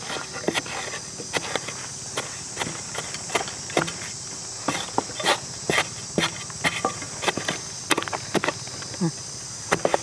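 Irregular scraping and knocking of digging in forest soil by hand, over a steady high-pitched drone of insects.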